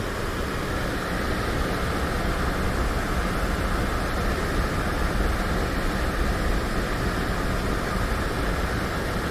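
Steady rushing outdoor noise with a low rumble underneath, unbroken and without distinct events.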